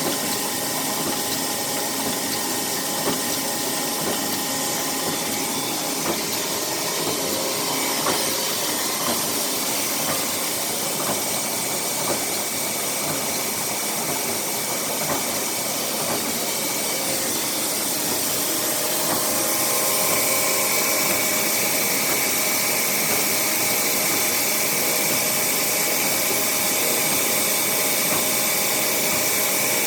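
ZJT-1500 machine running on its replaced motor, a steady mechanical whir with a hum of steady tones. About two-thirds of the way through it gets a little louder and its tone changes, then holds steady.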